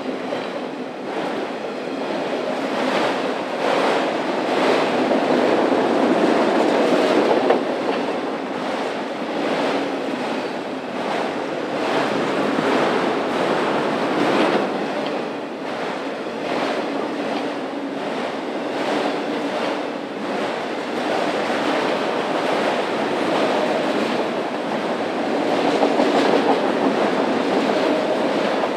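Norfolk Southern freight train rolling past, its steel wheels clicking over the rail joints again and again on top of a steady rumble.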